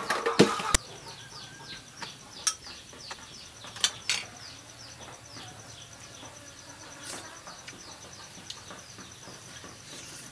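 Outdoor insect ambience: a steady high trill with a quick run of short, falling chirps repeating about three or four times a second. A noisy stretch cuts off suddenly under a second in, and a few sharp clicks stand out, two of them close together about four seconds in.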